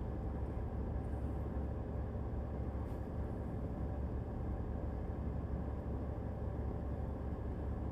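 Steady low hum inside a parked car, as of an engine idling, with no other events.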